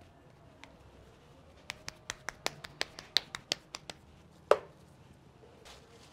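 Hands patting a ball of tortilla masa between the palms: a quick run of about a dozen light slaps, roughly five a second. Then comes a single louder knock with a short ring as the dough goes onto the tortilla press.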